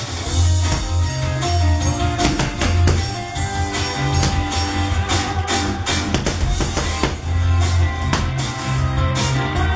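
Music with a drum kit beat and a bass line.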